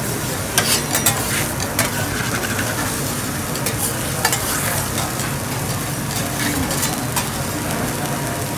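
Thick beef steak sizzling on a flat steel teppanyaki griddle, a steady hiss of searing. Sharp metallic clicks of metal utensils against the griddle come several times in the first half.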